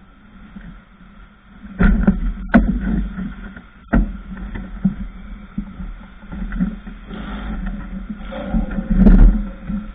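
Knocks and clanks of gear and framework on a suspended work platform as workers move about on it, over a steady low rumble; the sharpest knocks fall at about two and a half seconds, four seconds and near the end.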